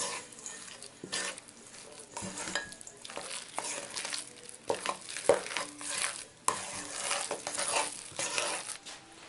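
Ricotta, Parmesan and parsley being mixed by hand in a stainless steel bowl: irregular wet squishing and scraping strokes, with a few sharp knocks against the bowl.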